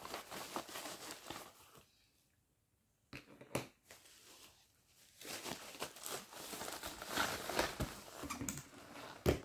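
White plastic packaging crinkling and rustling as it is handled and opened, with a short pause about two seconds in. A single sharp knock near the end.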